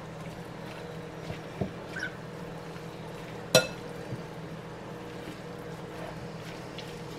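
Quiet kitchen handling as cooked chicken is moved by hand into a glass bowl: a few soft taps and one sharp, ringing clink of dishware about three and a half seconds in, over a steady low hum.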